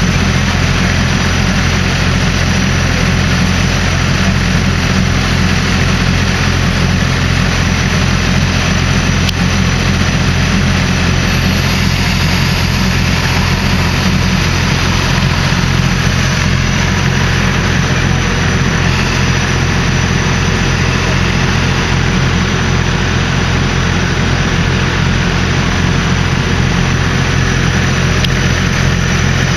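Diesel locomotive engine idling: a loud, steady low hum that does not change.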